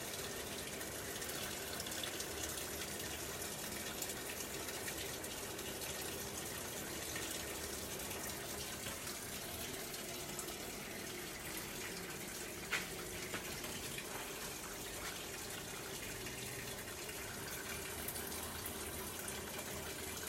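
Electrolux LBT 12 kg top-load washing machine running with water moving steadily in its tub, with no abnormal noise now that the broken part has been replaced. A single short click about two-thirds of the way through.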